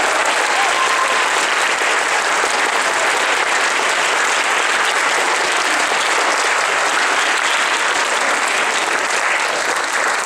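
Long applause from a large crowd, many hands clapping at a steady level.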